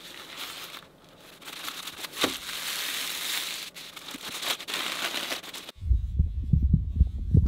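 Paper wrapping crinkling and rustling as hands unfold it. Near the end the crinkling stops and a low, pulsing throb takes over.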